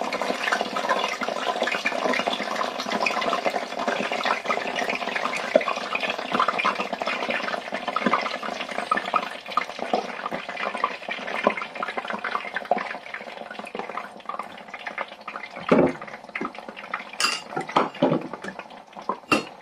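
Potato chips sizzling in the hot oil of a small electric deep fat fryer with its lid closed, a dense crackling hiss at the start of the first fry at 160 °C that slowly dies down. A few sharper clicks near the end.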